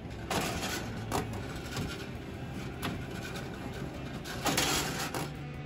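Fish tape sliding and scraping through a camper's underbelly in several short rasps, the longest and loudest about four and a half seconds in.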